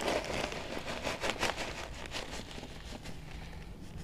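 Clear plastic bag crinkling and rustling as a hand scoops out citric acid crystals, in a run of scattered crackles that thin out toward the end.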